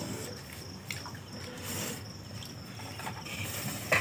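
Crickets chirping in a steady high trill, with faint scattered clicks and a sharp knock near the end.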